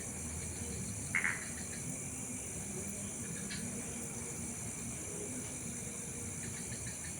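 Steady high-pitched chorus of crickets and other night insects, with one short, louder chirp about a second in and a low steady rumble underneath.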